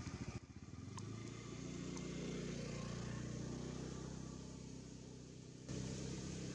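Low, steady engine hum of a motor vehicle, swelling over the first couple of seconds and then slowly fading.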